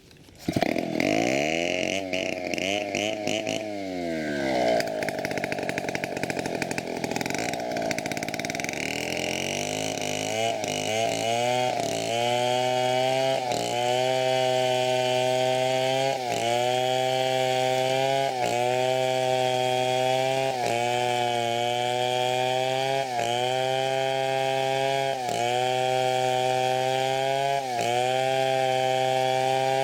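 Chainsaw cutting teak: it starts revving up and down, then runs at a steady high pitch under load with a short dip about every two seconds as it works through the wood.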